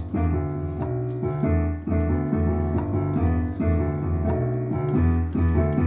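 Electric piano playing repeated chords over a deep bass line in an instrumental passage of a slow song, with no singing.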